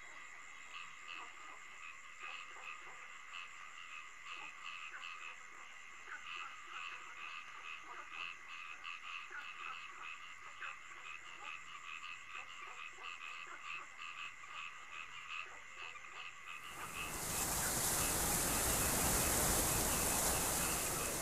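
A night-time chorus of calling animals, with steady high trilling and rhythmic pulsing calls a few times a second. Near the end a loud rushing hiss cuts in suddenly and drowns it out.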